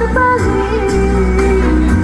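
A woman singing a Malay song into a microphone over electronic keyboard accompaniment, amplified through a PA. She holds notes with small wavering bends and glides.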